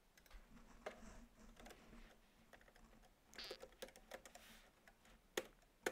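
Faint computer keyboard typing: a few irregular keystroke clicks, one sharper click about five seconds in.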